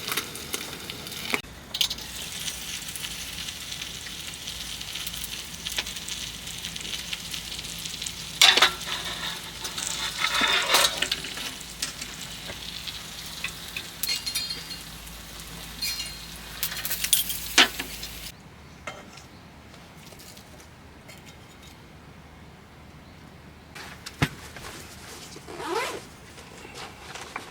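Food sizzling in a frying pan, with occasional sharp clinks and scrapes of utensils. The sizzling cuts off abruptly about two-thirds of the way through, leaving a quieter stretch with a few clinks.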